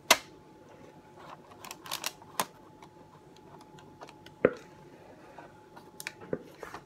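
Knocks and clicks of a plastic mixing bowl and utensil as thick banana bread batter is emptied into a paper-lined tin: a sharp knock right at the start, scattered taps in the middle, and another knock about four and a half seconds in. A faint steady hum runs underneath.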